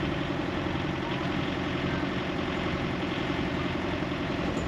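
Sailboat's inboard engine running steadily at low revs while motoring.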